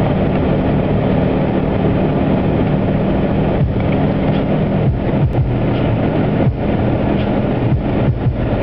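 Steady road noise of a car travelling at expressway speed: a continuous hum from the engine and drivetrain under a dense rush of tyre and wind noise, with a few brief dips in level.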